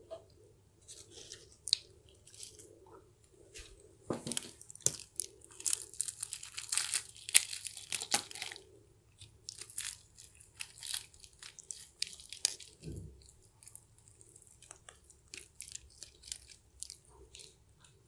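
Crispy KFC fried chicken being torn apart by hand and chewed, its breaded coating crackling and crunching in quick runs, densest about four to eight seconds in.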